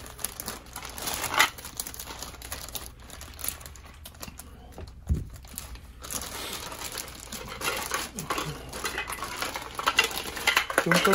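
Clear plastic bag crinkling as it is handled and opened by hand, in uneven bursts with a quieter stretch in the middle.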